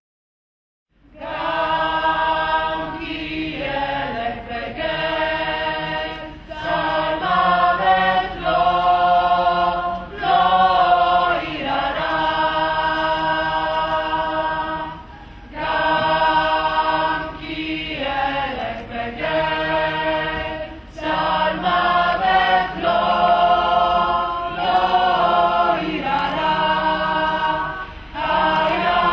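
A mixed choir of men's and women's voices singing long held chords, phrase after phrase with short breaks between. It starts about a second in, after a moment of silence.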